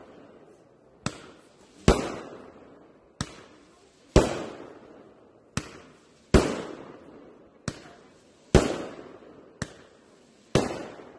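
Aerial fireworks firing shot after shot: each a short launch pop followed just under a second later by a louder bursting bang with a long echoing tail, about one shot every two seconds, five in all.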